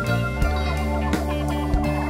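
Background music with a steady beat: sustained guitar or organ chords over drum hits about twice a second.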